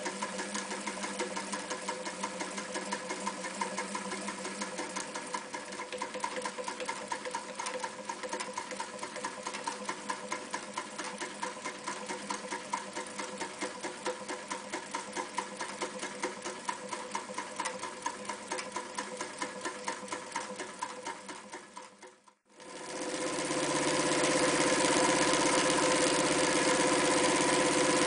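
Elna 31C Special sewing machine running, its needle stitching a zigzag through two layers of polyester webbing with a steady, fast rhythmic clatter. About 22 seconds in the sound drops out briefly, then the machine runs again, louder.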